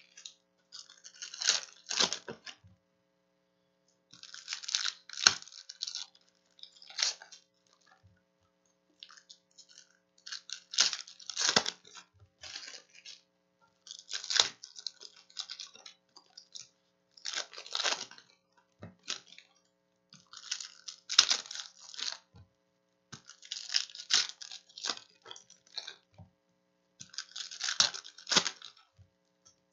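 Foil trading-card pack wrappers being torn open and crinkled by hand, in short crackling bursts every three seconds or so.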